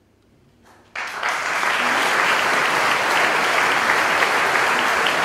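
About a second of near silence, then a large concert audience starts applauding all at once and keeps on clapping steadily.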